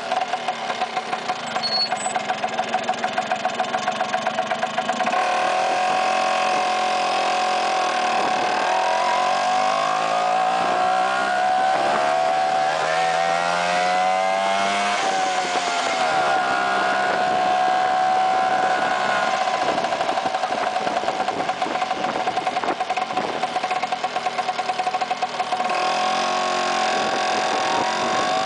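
Vespa PX scooter's two-stroke single-cylinder engine under way, its pitch climbing as it accelerates, dropping sharply about halfway through at a gear change, then holding steady at cruising speed, with another change near the end.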